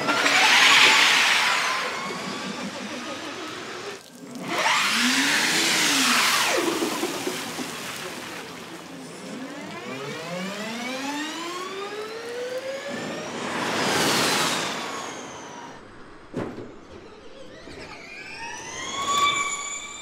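NIO Gen2 Formula E car's electric powertrain whining through several pull-aways and passes, the pitch rising as it accelerates and bending down as it goes by, over the hiss of tyres on wet asphalt. A single sharp click comes about three quarters of the way through.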